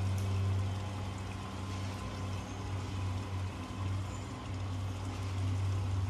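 Engine running steadily with a low hum, easing off a little in the middle.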